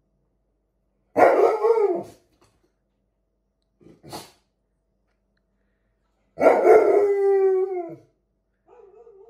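Alaskan Malamute giving three howling barks: one of about a second, a short one around four seconds in, and a longer one near the end that slides down in pitch. These are alarm calls at the sound of a window cleaner's ladders outside.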